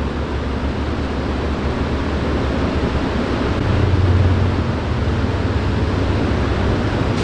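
Steady low machinery hum with an even hiss from cold-storage refrigeration equipment running, the hum swelling briefly about four seconds in.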